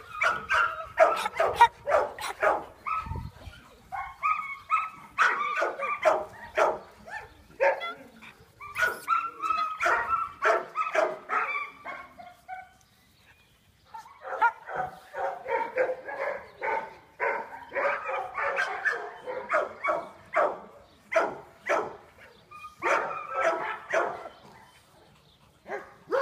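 Dogs barking over and over in quick runs, several barks a second, with a break of about a second and a half just past the middle.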